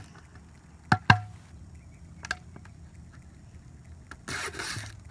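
Empty 2-liter plastic soda bottle being handled: two sharp crackles of the thin plastic about a second in and a fainter click later, then a short rustling tear near the end as the label is peeled off.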